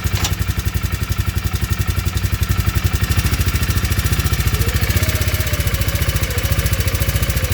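2019 Polaris 500 engine idling in fast, even pulses with a knock, which the owner takes for engine knocking. A brief click about a quarter of a second in.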